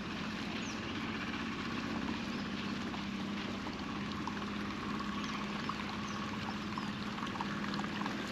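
Steady rush of flowing river water, with a low even hum underneath and a few faint, short high chirps.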